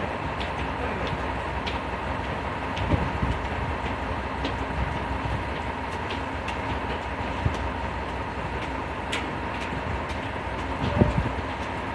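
Diesel railcar engine running steadily at idle: a low rumble with a faint steady whine above it, and a few light knocks.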